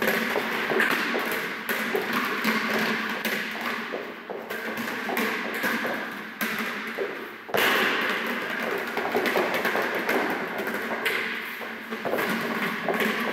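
A dense run of thumps and taps, growing suddenly louder about seven and a half seconds in.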